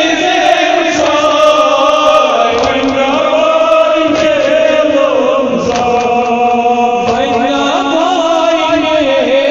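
Men's voices chanting a Kashmiri nohay, a Muharram mourning elegy, in long held melodic lines that slide slowly in pitch without a break.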